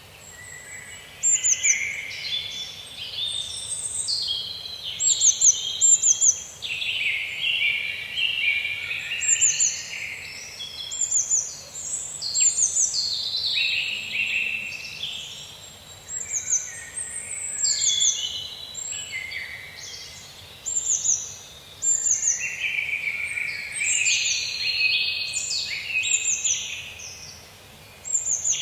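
Several songbirds singing in a forest, their phrases overlapping and full of high, quickly falling chirps, swelling and fading every couple of seconds over a faint steady background hiss.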